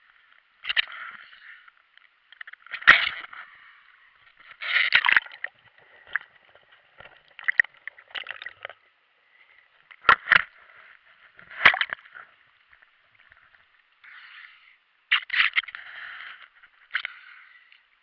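Seawater sloshing and gurgling around a GoPro in its waterproof housing as it dips in and out of the surface, muffled and thin-sounding through the case. Irregular splashes and sharp knocks against the housing come through it, the loudest about three seconds in and around ten and twelve seconds.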